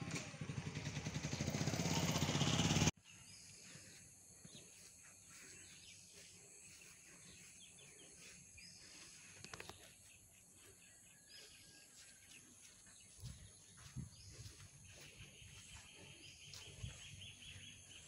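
A vehicle engine running and growing louder for about three seconds, then cut off suddenly. After that, quiet outdoor ambience with a few soft knocks and, near the end, a faint high trill.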